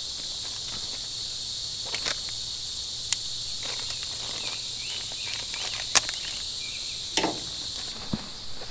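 Steady high-pitched buzzing of a summer insect chorus, with a few light clicks and taps scattered through it, the loudest sharp click about six seconds in.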